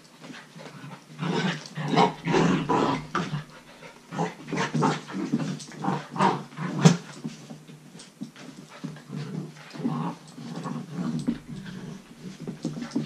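Two 10-week-old Belgian Malinois puppies play-growling and yipping in short, irregular bursts, with the loudest one a little past the middle.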